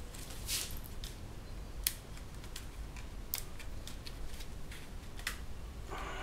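Irregular clicks and light taps of 3D-printed plastic laptop case parts being handled and turned over.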